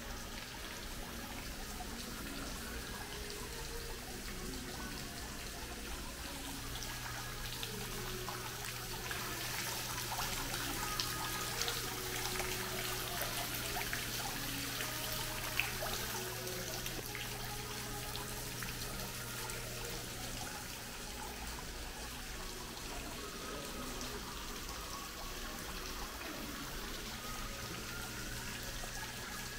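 Mall fountain's water splashing and trickling steadily, with a low steady hum beneath it that strengthens about a quarter of the way in and eases back about two-thirds of the way through.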